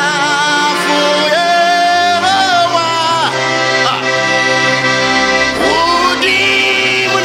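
Accordion playing a worship tune: held melody notes, some sliding and wavering, over steady bass notes.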